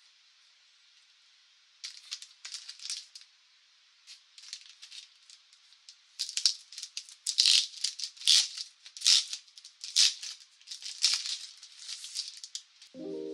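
Packaging crinkling and rustling as it is handled, in irregular bursts that grow denser and louder about six seconds in. Piano music starts at the very end.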